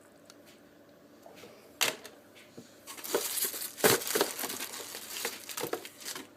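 Packaging being handled: a sharp snap just under two seconds in, then about three seconds of crinkling and crumpling with a few knocks, loudest near the four-second mark.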